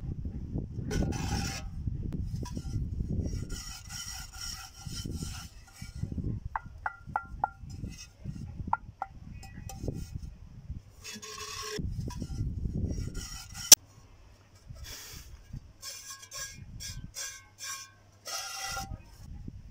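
Rough scraping and rubbing strokes in irregular bursts, with a run of short light clinks in the middle and one sharp knock about two-thirds of the way through.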